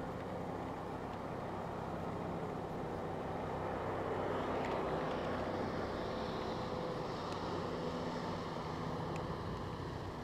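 Distant motorboat engine running with a steady drone and hiss, swelling about midway and easing off toward the end.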